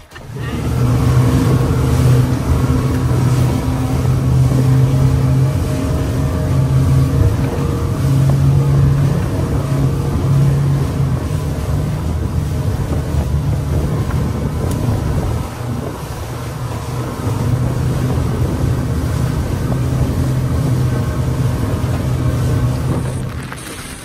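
Twin Yamaha 200 hp outboard engines running at cruising speed, about 4,500 rpm, a loud, steady engine drone. It eases briefly about two thirds of the way through and drops off near the end.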